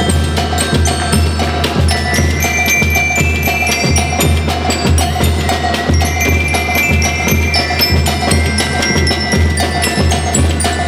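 School rhythm band playing: bell lyres ringing a melody over snare drums, bass drum and cymbals keeping a steady, even beat.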